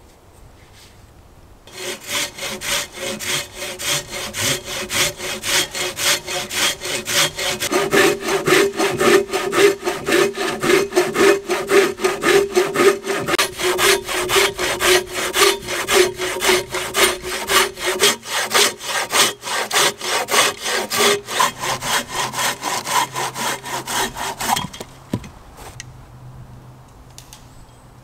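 Hand saw cutting a round slice off a log, in quick, even back-and-forth strokes. The sawing starts about two seconds in and stops a few seconds before the end.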